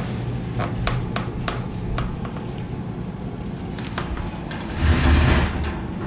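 Vintage AMC electric box fan running: a steady motor hum with a few light clicks, and a gust of its airflow buffeting the microphone about five seconds in.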